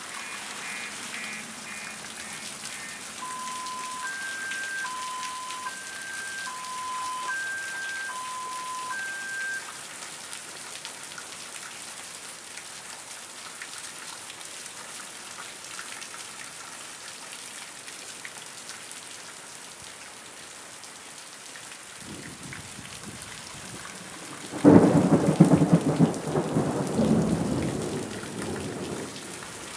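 Steady heavy rain falling on trees and grass in a thunderstorm. Early on, a two-tone siren alternates high and low several times. About 22 seconds in, thunder starts to rumble and breaks into a loud clap a few seconds later, which rolls off over the next few seconds.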